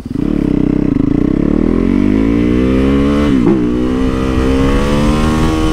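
Supermoto motorcycle engine accelerating hard. Its pitch climbs for about three seconds, dips briefly, then holds high and keeps slowly rising.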